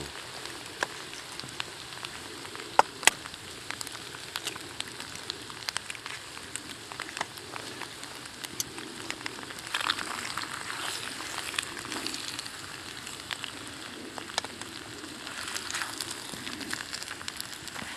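Eggs and sliced potatoes sizzling in a frying pan over a wood-burning camp stove, a steady frying hiss with scattered pops and crackles; two sharper pops about three seconds in.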